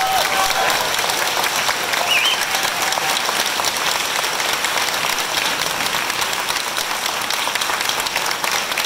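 Audience applauding steadily at the end of an orchestral piece, with a few short cheers or whistles near the start.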